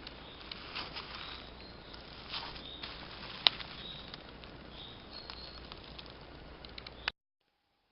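Spring forest ambience: a steady rustle with scattered small crackles and ticks, and a few short, high bird notes. A sharp crack about three and a half seconds in is the loudest sound. The sound cuts off abruptly near the end.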